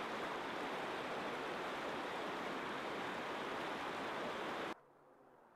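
Steady rush of fast water from Duchesnay Falls, a creek running hard over rocks and a small falls in spring melt. It cuts off suddenly near the end.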